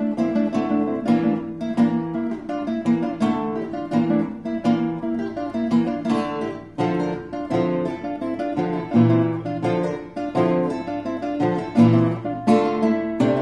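Classical guitars playing: a steady stream of quick plucked notes and chords, with a few louder chords near the end.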